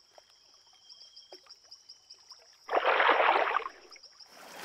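Cartoon night ambience of insects trilling steadily, high-pitched, with a loud splash of water lasting about a second near the three-second mark, followed by softer water sloshing as swimmers move through it.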